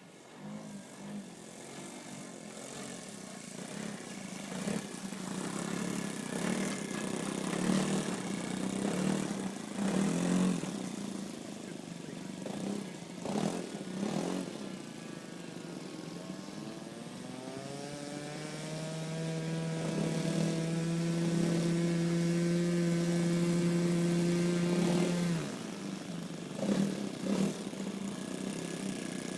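O.S. 95V glow engine of a Great Planes Revolver model plane running in flight, growing louder as the plane comes closer. About two-thirds of the way through, its pitch rises as the throttle opens and then holds steady and loud. Near the end the note drops off suddenly.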